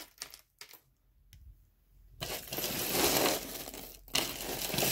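Costume jewelry being handled: a few light clicks, then from about two seconds in a continuous rustling and clinking as chains and beads are rummaged and pulled apart, with a brief pause near the end.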